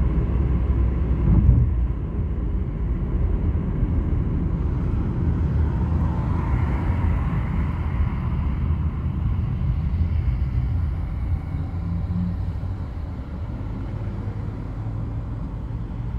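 Road noise inside a moving car's cabin: a steady low rumble of engine and tyres, a little quieter over the last few seconds.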